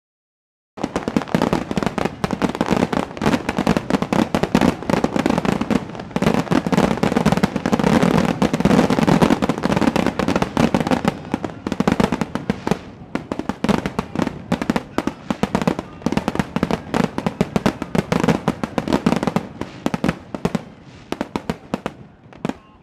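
Fireworks display: a rapid, dense barrage of shell bursts and crackles that starts abruptly about a second in, is heaviest in the middle, and thins out toward the end.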